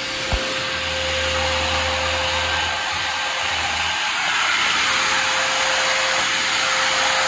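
Handheld power tool running steadily: an even rushing noise with a constant mid-pitched whine, plus a low hum for the first few seconds.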